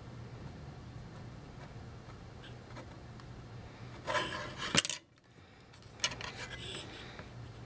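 Small metal tools scraping and clicking against a circuit board as a stuck old wire is worked out of its solder hole. About four seconds in comes close to a second of rubbing and scraping that ends in a sharp click, then a shorter scrape a second later, over a low steady hum.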